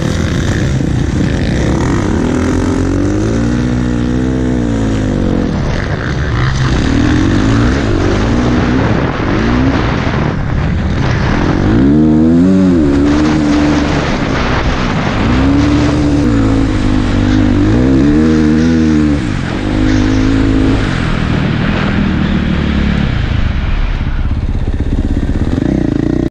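Off-road motorcycle engine revving hard while being ridden, its pitch rising and falling again and again as the throttle is opened and closed.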